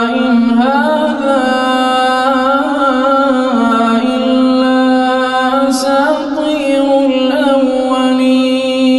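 A man's voice reciting the Quran in melodic tajweed chant, one unbroken line of long held notes that step and glide between pitches with ornamented turns.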